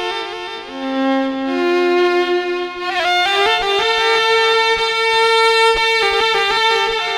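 Violin playing a slow melodic line of held notes, stepping from note to note, with one long held note in the second half, in an instrumental interlude of Egyptian Sufi religious song (inshad).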